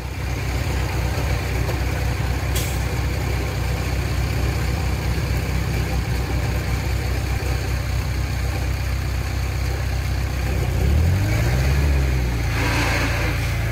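Heavy earthmoving machine's diesel engine running at a steady idle, revving up and dropping back down about eleven seconds in.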